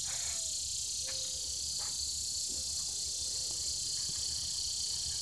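Steady high-pitched chorus of insects, with a few faint taps.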